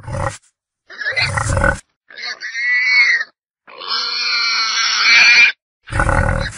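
Wild boar calling in separate bursts: short low grunts at the start and end, and two longer, higher-pitched calls in the middle, the second about two seconds long. Each call stops dead into silence, as edited sound-effect clips do.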